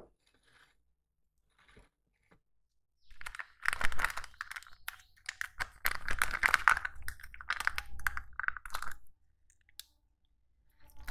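A plastic shampoo sachet crinkling and crackling as fingers work it and tear it open, starting a few seconds in and stopping about two seconds before the end.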